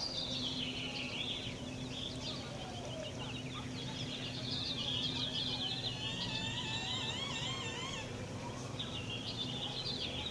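A black bird's squeaky, chattering song: runs of quick, high, rising and falling squeaks, with wavering whistled trills in the middle.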